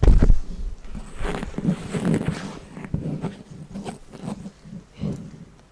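A large paper chart rustling and crinkling as it is handled and folded, with a loud bump right at the start.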